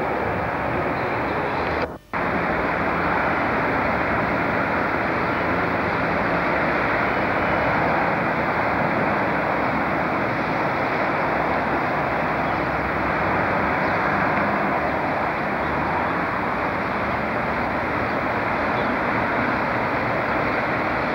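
Diesel locomotive hauling a loaded freight train, a loud, steady drone without a clear rhythm. A brief dropout about two seconds in.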